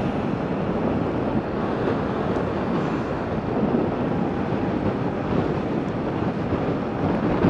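Steady wind rushing over the microphone, mixed with the road noise of a moving vehicle.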